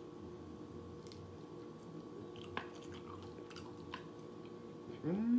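A person chewing a piece of bone-in chicken, with a few soft mouth clicks. Near the end comes a rising 'mm' hummed through the food.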